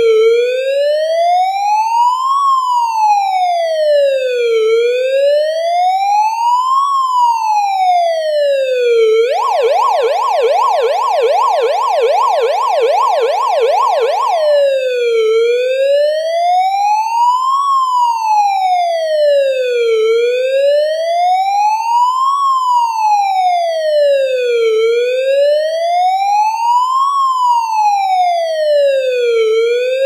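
Electronic police car siren in a slow wail, its pitch rising and falling about every four and a half seconds. About nine seconds in it switches to a fast yelp, several rapid sweeps a second, for about five seconds, then goes back to the slow wail.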